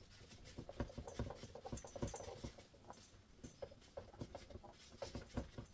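Paper towel scrubbing the face of a spinning prize wheel in quick, irregular strokes, rubbing off permanent marker loosened with perfume.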